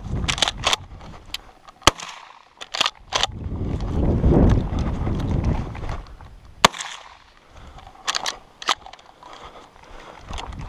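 Irregular sharp metallic clicks and clacks of an Adler A110 lever-action shotgun being reloaded, shells pushed into the magazine and the action worked, two of the clicks much louder than the rest. A low rumble rises around the middle.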